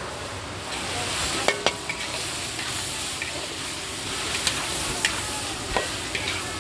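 Stir-frying in a large metal wok: a steady sizzle of nuts frying in chili paste, with metal ladles scraping through them and clinking sharply against the pan, notably about a second and a half in and several times in the second half.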